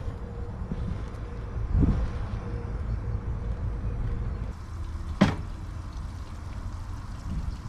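Steady low rumble of distant freeway traffic, with a single sharp knock about five seconds in.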